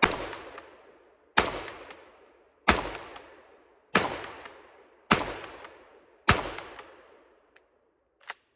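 Tokarev TX3 Hammer 12-gauge pump-action shotgun firing birdshot: six shots in steady succession, a little over a second apart, each followed by a fading echo. Two faint clicks follow near the end.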